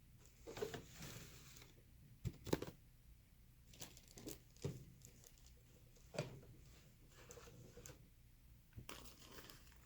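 Faint rustling and crinkling as yarn is handled and pulled from a storage bin, with a handful of light taps scattered through.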